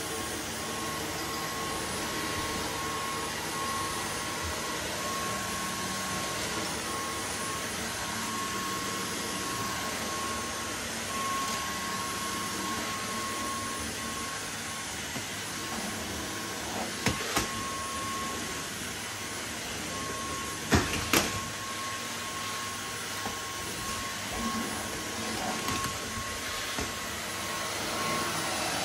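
Dyson V15 Outsize cordless stick vacuum running steadily under a sofa: an even rush of airflow with a steady high whine from the motor. A few sharp knocks come past the middle.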